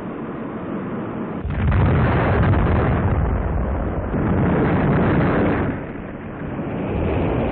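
Dubbed-in explosion sound effect: a low rumble, then a sudden loud blast about one and a half seconds in that rolls on for several seconds, eases off, and swells again near the end.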